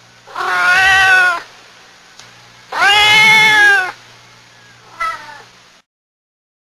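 Kitten meowing: two drawn-out meows of about a second each, then a short, weaker meow near the end.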